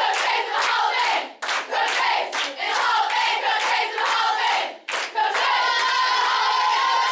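A group of young women chanting and shouting a team cheer in unison over steady rhythmic hand claps, breaking off briefly twice. Near the end the voices hold sung notes.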